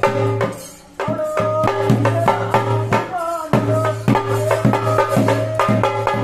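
Bhuta kola ritual music: a melody of held and bending notes over a steady drone, with drums and small percussion beating a steady rhythm. The music drops away briefly just before a second in, then resumes.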